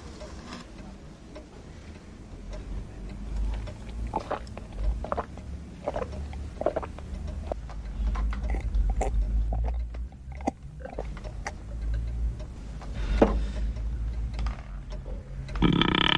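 A man downing a pint of Guinness stout in one long drink, with repeated gulps and swallowing clicks. Music comes in near the end.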